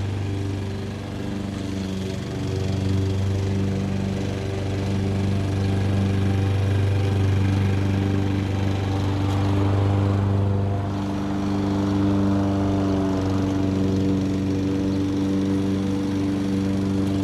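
A distant lawn mower engine running steadily, its hum wavering slightly in pitch and level, mixed with the whir of an electric fan.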